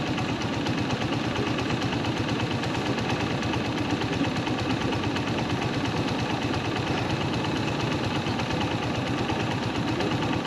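BMW GS Adventure motorcycle engine idling steadily, with a fast, even pulse.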